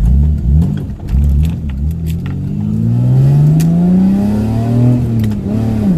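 Mazda 626's 2.5-litre V6 engine accelerating, its pitch climbing and falling back in quick steps at first, then one long climb that drops away near the end as the revs come down.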